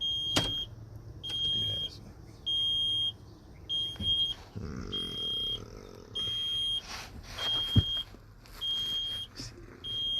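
A truck's warning beeper sounding over and over, one high, steady-pitched beep about every 1.2 seconds, nine in all. Under it are small handling clicks and rustles, and a single sharp knock near the end that is the loudest sound.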